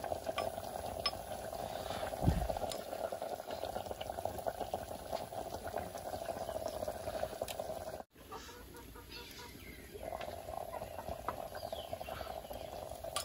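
Fish curry simmering and bubbling steadily in a clay pot over a wood fire, with a metal spoon stirring it at the start and a low thump about two seconds in. The bubbling breaks off for about two seconds just past the middle, then resumes.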